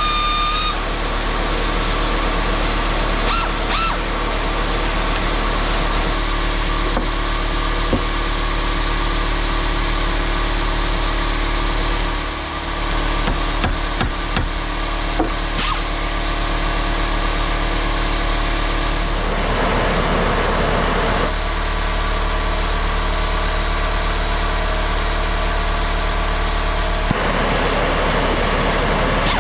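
Pneumatic angle grinder, a junk one with a bent shaft, running continuously on compressed air, a steady loud mechanical drone. A high whine drops away about a second in, and rougher, noisier stretches come about twenty seconds in and near the end.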